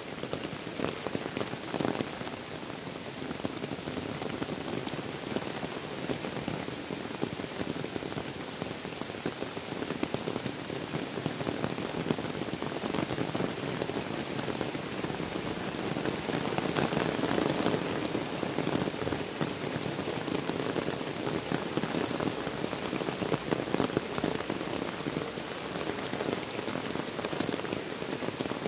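Heavy rain falling steadily on water, leaves and muddy ground, with many close drops ticking; it grows somewhat heavier about halfway through.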